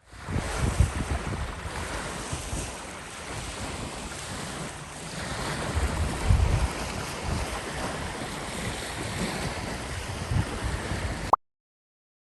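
Strong wind gusting over the microphone, a steady rushing hiss with heavy low buffeting thumps that swell and fall, loudest around a second in and again about six seconds in. It cuts off abruptly near the end.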